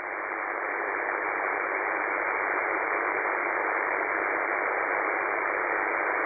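Shortwave radio static: a steady hiss from a web SDR receiver tuned to UVB-76's frequency, with no buzz tone or voice, swelling in level over the first second.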